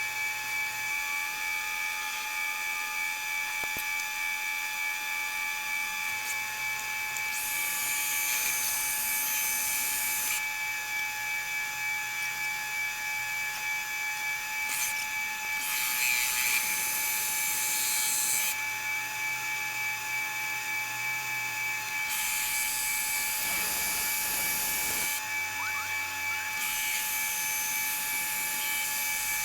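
Monarch metal lathe running with a steady whine, turning down the seal surface of an old pumping unit's high-speed gear shaft held in a steady rest. A hissing cutting noise rises during four stretches of a few seconds each, as the tool makes its passes.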